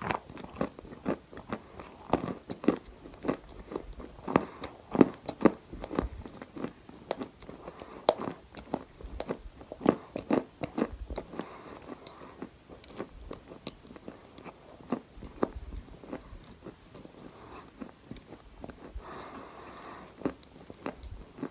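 Grey edible clay being bitten and chewed, with many sharp, irregular crunches that come thick and fast at first and grow sparser toward the end.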